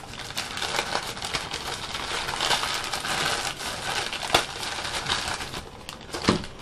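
Plastic packaging bag crinkling and rustling as it is handled and pulled open, an irregular run of sharp crackles.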